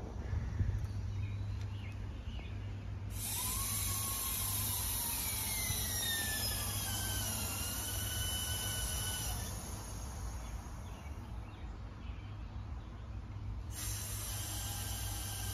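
Nitrogen hissing through the regulator and manifold hoses into an air-conditioner line set and coil, pressurizing it for a standing-pressure leak test. Whistling tones slide in pitch through the flow. The hiss starts about three seconds in, stops briefly near the end and starts again, over a steady low hum.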